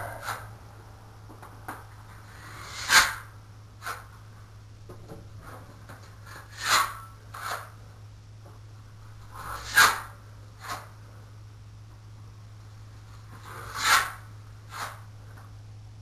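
Taping knife scraping wet joint compound, in four pairs spaced a few seconds apart: a longer swish followed by a shorter scrape under a second later each time. This is the first coat of mud being spread onto the wall.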